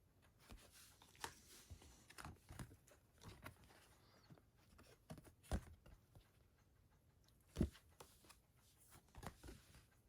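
Glossy art cards being handled and flipped over: faint rustling of stiff paper and light taps, with two sharper knocks, one about halfway through and one a couple of seconds later.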